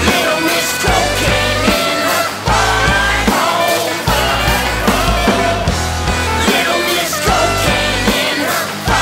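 Punk rock band playing an instrumental passage: steady drum beat and bass under a wavering lead melody.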